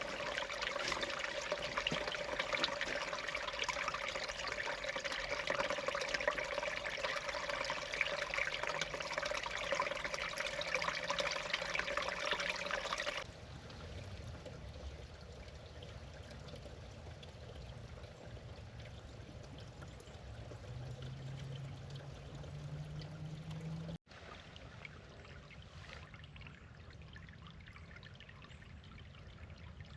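Running water, like a small creek trickling over stones, as a steady hiss that cuts off abruptly about a third of the way in. It is followed by much quieter outdoor background, in which a faint low hum rises in pitch shortly before a second abrupt break.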